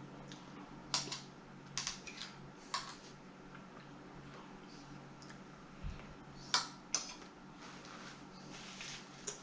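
Metal fork clicking and scraping against a ceramic plate while scooping food: several sharp clicks at irregular intervals, with one dull low thud in the middle and a faint steady hum underneath.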